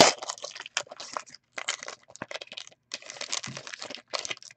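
Foil wrapper of a hockey trading-card pack being torn open and crinkled as the cards are pulled out, in a string of short crackling bursts.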